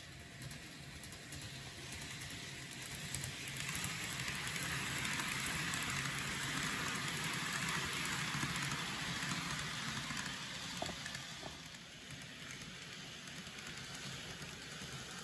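N gauge model train running along the layout track, the noise of its wheels on the rails growing louder as it nears, loudest through the middle, then fading about twelve seconds in, over a steady low hum.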